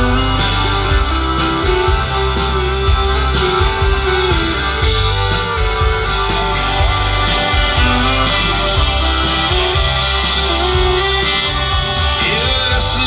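A live band playing loud guitar-led country rock without vocals: strummed and electric guitars over a steady bass and drum beat, heard from within the crowd.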